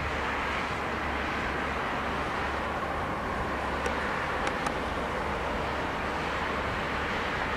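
A train rolling past with a steady noise of wheels on rails, and a few sharp clicks about halfway through.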